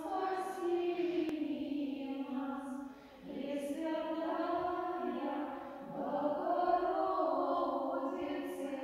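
Women's voices chanting an Orthodox prayer together: long sung phrases on a few held notes, pausing briefly about three seconds in and again about six seconds in.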